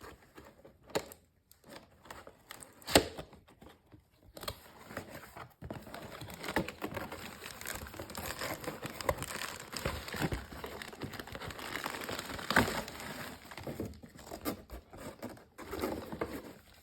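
Cardboard box being opened by hand. A few sharp knocks and clicks come first; from about four seconds in, plastic packaging crinkles and rustles almost continuously, with occasional sharper crackles.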